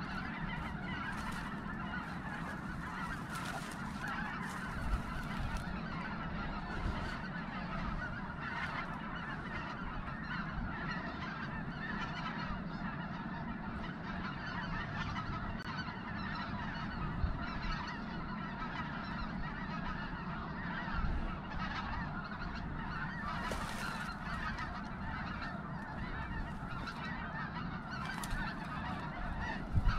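A huge flock of snow geese calling without a break: a dense, steady din of many overlapping honks. Now and then there is a brief close rustle of dry grass.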